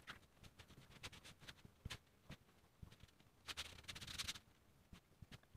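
Hands kneading crumbly egg pasta dough on a wooden board: faint soft knocks and taps, with a brief rustling scrape of flour and dough crumbs about three and a half seconds in.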